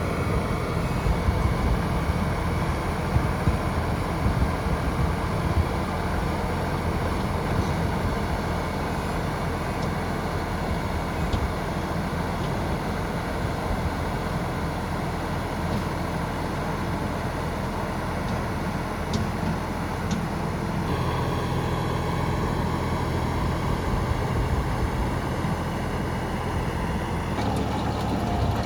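A small engine running steadily, its note shifting about two-thirds of the way through and again near the end.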